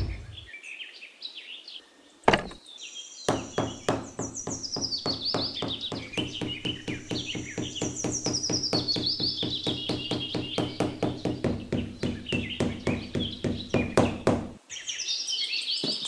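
Birds chirping over background music with a fast, even knocking beat and a low held drone, which start about three seconds in and stop shortly before the end.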